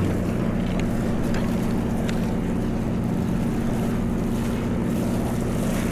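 A party fishing boat's engine running with a steady low hum, with a few faint clicks over it.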